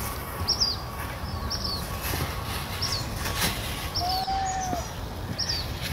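A small bird calling in the trees: short, high, falling chirps repeated about once a second, over a steady low background rumble. A single longer, fainter whistled note comes about four seconds in.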